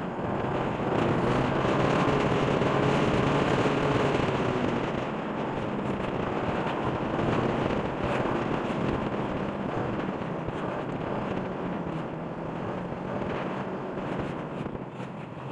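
Motorcycle riding along a road: a steady engine hum under wind rushing over the microphone, a little louder for a few seconds early in the ride and then easing slightly.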